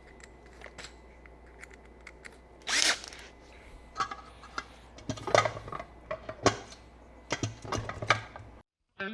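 A power drill run in short bursts, boring a hole through a solar panel mount, with clicks and knocks of handling between the bursts. The sound cuts off suddenly near the end.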